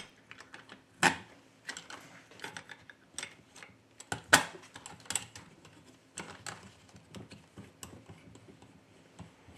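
Irregular light clicks and knocks of a TBK-928 phone screen separator being handled: its rubber suction cups pressed onto the screen and its metal clamp plates and adjusters set, with two louder knocks about one and four seconds in.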